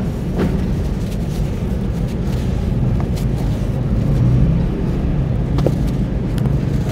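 Crumbled sand pouring from a hand in a stream onto wet sand and water in a plastic tub, a continuous low rumbling hiss with a few crisp crackles scattered through it.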